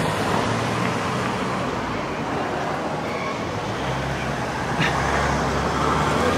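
City street ambience: cars driving slowly past on the street, with a low engine hum that grows from about four seconds in, over a steady background of traffic noise.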